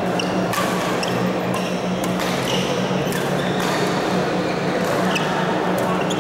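Badminton rally: racquet strings striking the shuttlecock in sharp hits every half second to a second, with short high squeaks of shoes on the court floor, over a steady low hum.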